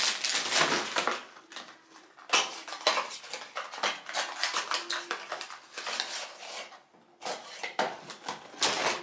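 Crinkling and crackling of clear plastic film being peeled off a cardboard perfume box, with irregular clicks and taps as the box is handled and its flap opened.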